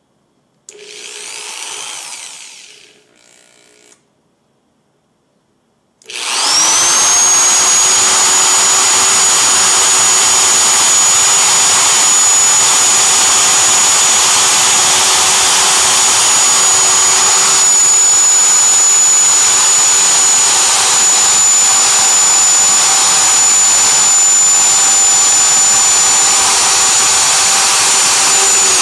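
Corded electric drill boring a 3/4-inch hole through the bottom of a thin plastic pail. After a brief burst about a second in and a short pause, it spins up about six seconds in with a rising whine and then runs steadily at full speed.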